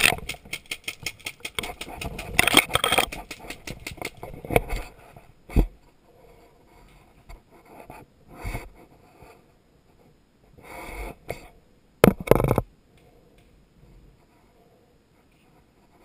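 Rustling and scraping of brush, dry leaves and gear against the mic, dense for the first few seconds, then a few separate knocks and thumps, the loudest pair about twelve seconds in.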